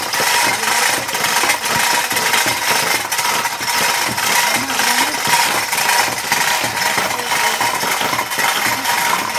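A machine running loudly and steadily with a fast, continuous rattle.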